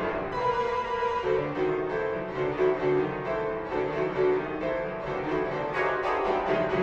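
Instrumental music: a busy run of short keyboard notes at a steady level.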